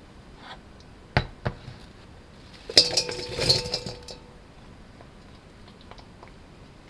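Two sharp knocks about a second in, then a burst of clinking and clattering as cut onion chunks are tipped from a glass bowl into a stainless steel mixing bowl, the steel bowl ringing briefly.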